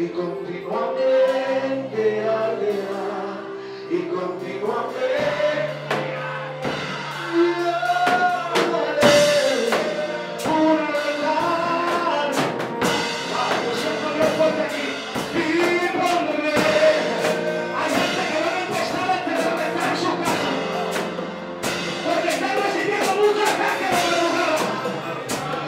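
Live gospel worship music: a man singing into a handheld microphone over sustained accompanying chords and regular drum hits.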